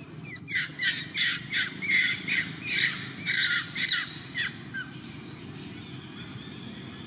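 Macaque giving a rapid series of about a dozen short, shrill squealing calls during mating, which stop about five seconds in.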